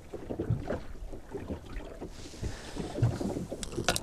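Water slapping and knocking against a small wooden boat's hull as it rocks in a choppy sea, with wind buffeting the microphone. A couple of sharp clicks near the end.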